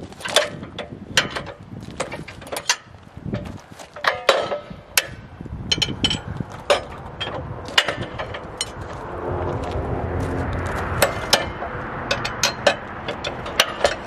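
Steel stabilizer leg jacks on a Wood-Mizer LT70 portable sawmill being cranked down by hand, giving a run of irregular metallic clicks and clanks. From about nine seconds in, a steady rushing noise joins the clicks.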